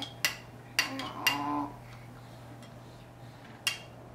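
Hard plastic toy pieces knocked together by a baby: a few sharp clacks in the first second and a half, and one more near the end.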